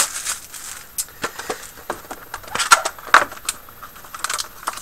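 A trading card pack being handled and opened by hand: scattered sharp clicks and crackles of the wrapper and the cards, about nine of them.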